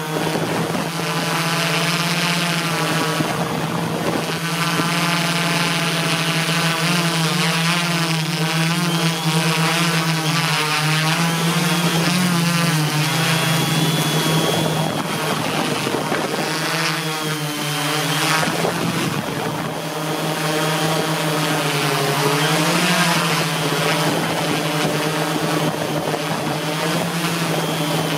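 Align M480L multicopter's electric motors and propellers whirring steadily, the pitch briefly shifting up and down several times as the motors change speed.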